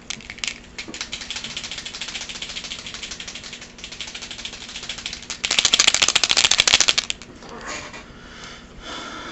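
Plastic-bodied Sharpie poster paint marker shaken hard, the mixing ball inside rattling rapidly to mix the gold paint. The rattle gets louder about five and a half seconds in and stops about seven seconds in, followed by a few fainter rattles.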